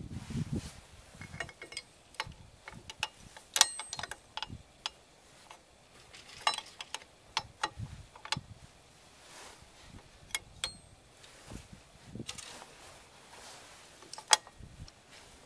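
Metal-on-metal clicks and clinks of rear drum brake parts being handled and fitted at the backing plate by hand: irregular sharp taps, a few of them ringing briefly, with the loudest a little over three and a half seconds in and again near the end.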